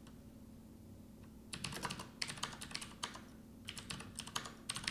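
Typing on a computer keyboard: after a quiet second and a half, two quick runs of keystroke clicks, the second starting near the four-second mark.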